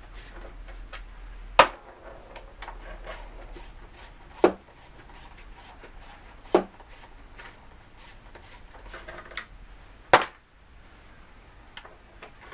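Hand tools with a Torx 27 socket undoing the three bolts that hold the filter to the valve body of a ZF 5HP18 automatic transmission: four sharp clicks a few seconds apart, with fainter ticks and rubbing between them.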